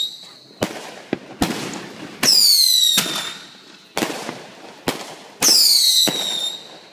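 Fireworks going off: a series of sharp bangs, with two loud whistling fireworks whose whistles fall in pitch over about a second each, one about two seconds in and one about five and a half seconds in.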